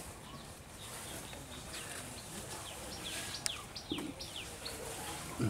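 Small birds chirping: a run of short, quick chirps that slide downward in pitch, starting about a second and a half in, over a faint outdoor hiss. A single sharp click about halfway through and a brief low sound near the end.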